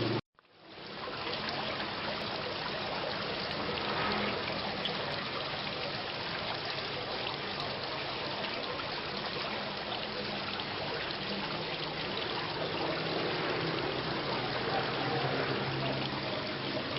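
Steady rain falling, a dense even hiss of drops with some trickling water. The sound cuts out for a moment just after the start and fades back in over about a second.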